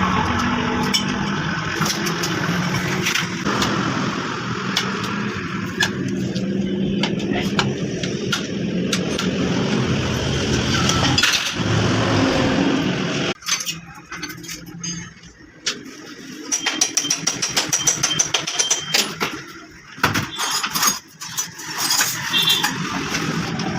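A motor engine running steadily, which stops suddenly about halfway through. After that come scattered sharp metallic clinks and knocks.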